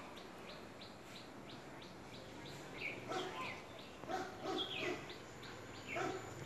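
Bird chirping with a regular string of short, high notes, about three a second. A dog barks several times, starting about three seconds in.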